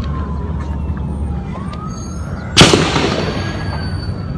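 A single loud gunshot about two and a half seconds in, with an echoing tail, over a siren wailing faintly in the background.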